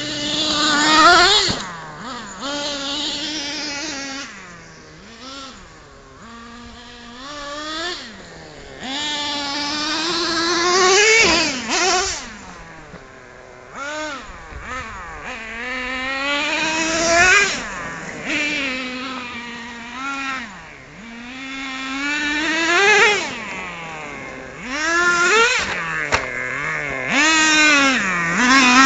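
Traxxas T-Maxx nitro RC monster truck's small glow engine revving hard and easing off again and again as it is driven, its pitch climbing on the throttle and dropping between runs.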